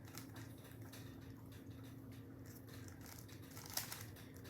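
Faint clicking of a 3x3 Rubik's cube's layers being turned in quick succession while an algorithm is carried out, with one louder click near the end.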